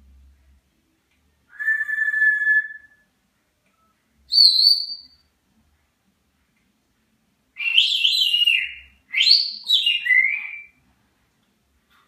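African grey parrot whistling. About a second and a half in comes a held steady note, then a short high note near the fourth second. After a pause come two longer phrases of quick up-and-down whistled notes, the second ending in a downward slide.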